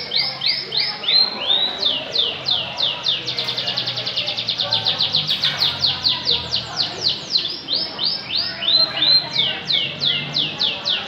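Canary singing: a continuous run of rapid, high whistled notes, each sweeping downward, about five a second, quickening into a fast trill in the middle and then slowing again.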